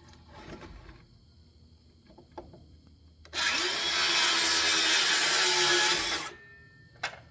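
Power saw cutting through a wooden board: about three seconds of steady cutting starting a little past three seconds in, then winding down. A few light knocks of wood being handled come before it, and a sharp click near the end.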